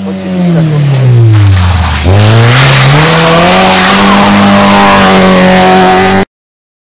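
Rally car engine passing close at high revs. The engine note falls steeply for about two seconds as the car slows for the bend, then climbs again as it accelerates out and holds a steady high note. The sound cuts off suddenly near the end.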